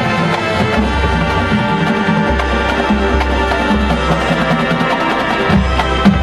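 High school marching band playing its field show: full ensemble chords over long low bass notes, with a few sharp percussion hits near the end.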